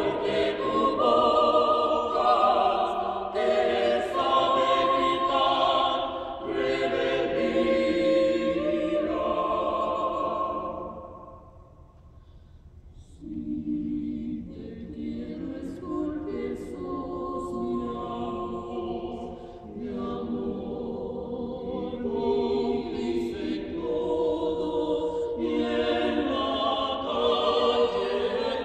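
Vocal ensemble singing in several-part harmony. The singing dies away about eleven seconds in, then starts again softly about two seconds later and builds toward the end.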